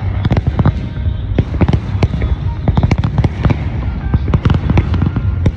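Aerial fireworks display: a dense, continuous barrage of booming shell bursts and sharp crackling reports, several bangs a second over a deep rumble.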